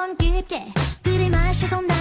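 Background music: a melody over a steady beat, about one beat every three quarters of a second.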